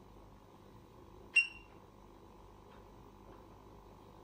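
One short, high electronic beep from a lab power supply's keypad about a second and a half in, as its output is stepped up by a tenth of a volt. A faint steady hum lies underneath.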